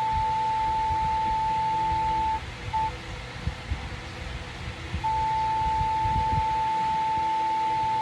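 Morse code sent as a steady high beep tone keyed on and off: a long tone that stops about two seconds in, a short beep just after, a pause, then another long tone from about five seconds in.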